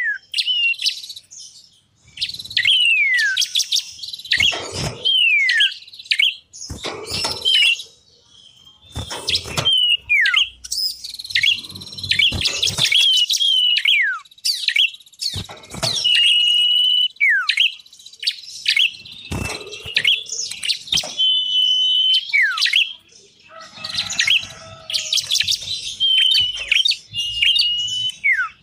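Small songbirds of the kind used in lure recordings, such as iora and prinia, calling over one another. The calls are repeated falling whistles, a few held high whistled notes, and dry chattering trills, with only brief pauses.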